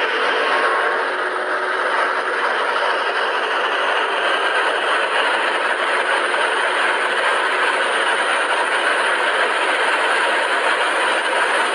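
Mercedes-Benz W210 E430's 4.3-litre V8 pulling hard at high speed, heard from inside the cabin as a steady rush of engine, wind and road noise.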